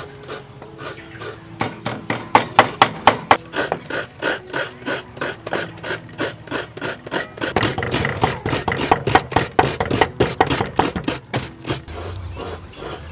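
Cleaver chopping pork on a round wooden chopping board: quick repeated chops, several a second, coming faster in the second half.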